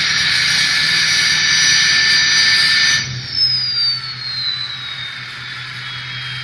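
Ford 6.0 Power Stroke turbo diesel, straight-piped, held at high revs with a loud turbo whistle. About three seconds in the throttle is released: the engine drops to idle and the whistle falls steadily in pitch as the turbo spools down.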